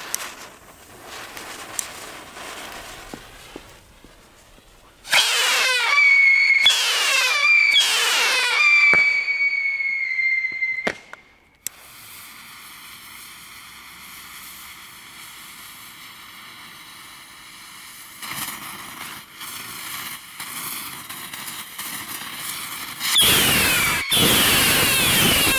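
Tolle Lola whistling rockets (VPI/Weco) launching. A fizzing fuse is followed about five seconds in by several overlapping, piercing whistles that slide down in pitch and fade by about eleven seconds. Another volley of whistling rockets goes up near the end.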